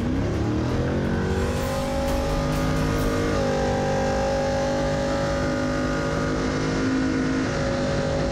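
Off-road race truck's engine revving up sharply as it launches from the start line, then running hard under acceleration, heard from inside the cabin. The pitch rises steeply at the start, then holds with a couple of small shifts.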